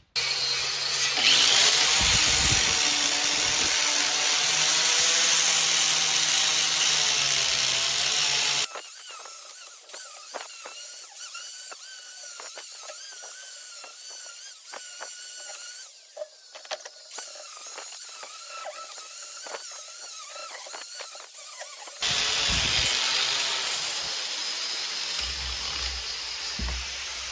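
A high-speed power tool runs loudly, cleaning up the cart's wheels and shafts. About 9 s in it cuts off sharply to a quieter stretch with a wavering whine and scraping clicks. The loud running returns about 22 s in.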